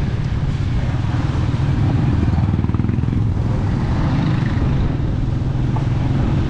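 Motorcycle engine running steadily, a low drone that holds an even pitch and level.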